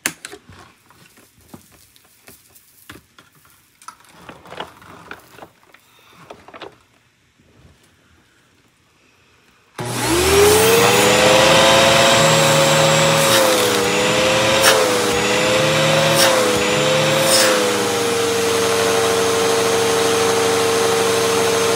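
Faint knocks and rustles of handling. About ten seconds in, a wet/dry shop-style canister vacuum switches on, its motor winding up quickly to a steady high whine. The pitch wavers for a few seconds, then settles.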